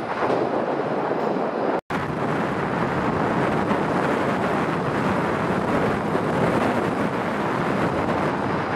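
Jet engine noise of an Airbus A321neo climbing out after take-off breaks off abruptly about two seconds in. A steady rushing noise with wind on the microphone follows as an ATR 72-600 turboprop approaches to land.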